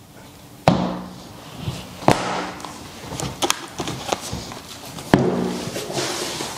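Leather boots and their shoebox being handled: three sharp knocks or thuds, each with a brief low ring, with rustling between them.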